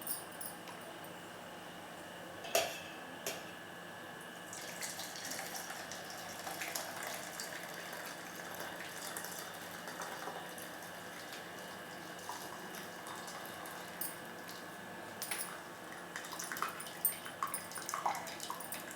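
Hot herbal decoction being poured from a pot through a stainless steel strainer, with liquid trickling and the clink of metal vessels, a cluster of clinks near the end.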